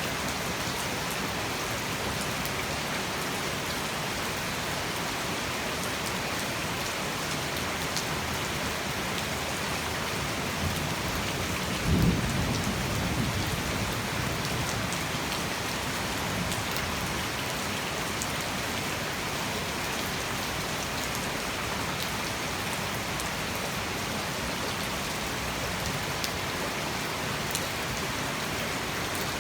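Heavy tropical rain falling steadily. About twelve seconds in, a sudden clap of thunder rumbles low and dies away over two or three seconds.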